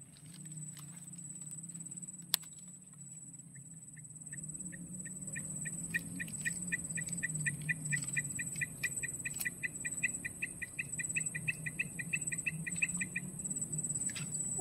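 Outdoor insect drone, steady and high-pitched, over a low hum. About four seconds in, a rapid even series of high pips starts, about five a second; it grows louder and stops about a second before the end.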